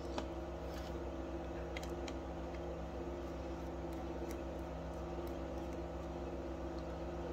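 A steady mechanical hum, with a few faint metallic clicks as a screwdriver backs out the cover screws of a Tillotson chainsaw carburetor.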